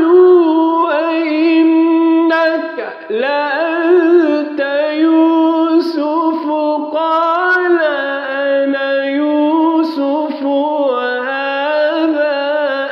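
A male Quran reciter chanting in the melodic tajweed style, drawing the words out into long, wavering, ornamented notes, with a short breath about three seconds in.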